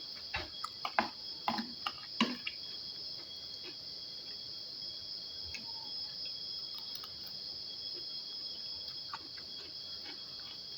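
Crickets chirring in a steady, high, unbroken trill. A few light clicks of a spoon on a plate come in the first two seconds.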